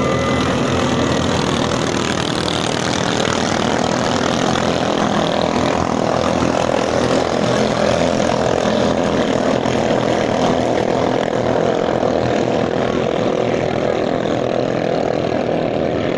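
Ketinting longtail racing boat engines running at full speed on the river, a loud, steady drone.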